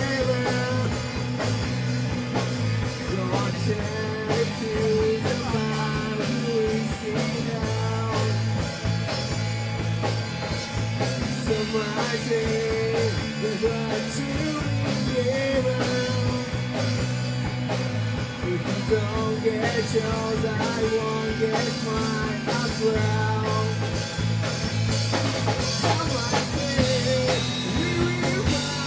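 Live rock band playing: drum kit hits, electric guitar and bass, with a wavering melody line that sounds like singing over the top.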